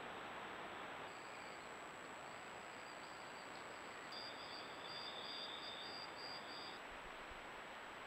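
Faint steady hiss from a trail camera's microphone, with a constant thin high whine. From about four seconds in, an insect chirps in a quick, even series, about three chirps a second, stopping shortly before the end.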